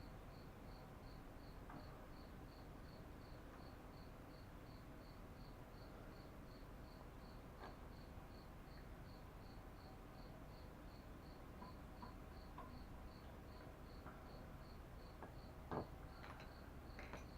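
Faint, steady cricket chirping, about three chirps a second, with a few small clicks and one slightly louder knock near the end from hand work.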